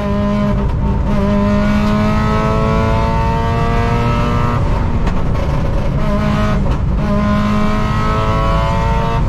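Rally car engine under hard acceleration, heard from inside the cabin. Its pitch climbs steadily in each gear and drops briefly at upshifts about four and a half seconds in, about seven seconds in and again near the end.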